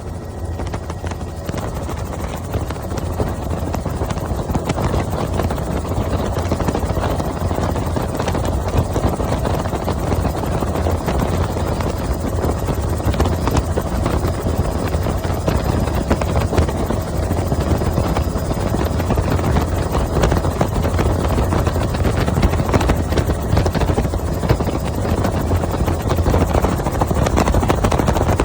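Helicopter running steadily: a loud, low, unbroken rotor and engine rumble with a fast pulsing beat, growing slightly louder toward the end.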